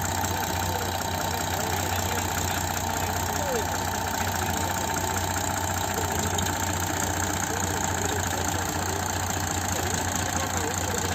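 Heavy machinery's diesel engine idling steadily, with a low, even hum that does not change.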